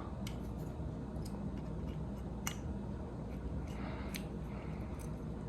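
A few faint, sharp metallic clicks, spaced irregularly, from the cylinder plug of an Abus 83/45 padlock as a plug follower pushes it out during disassembly.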